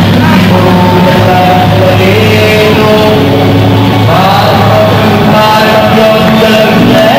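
Background music with a melody of long held notes.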